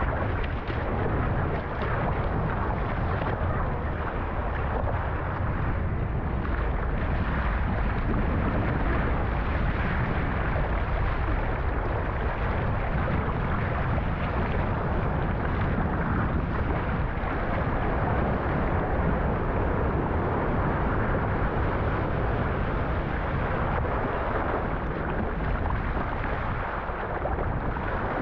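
Wind buffeting the microphone over a steady rush of ocean water and surf.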